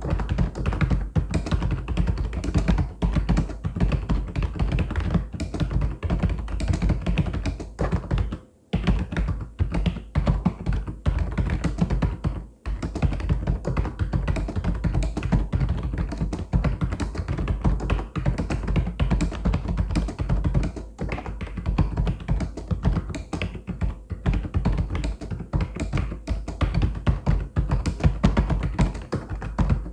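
Mechanical keyboard being typed on fast and without let-up, a dense run of key clacks, with two brief pauses about eight and a half and twelve and a half seconds in.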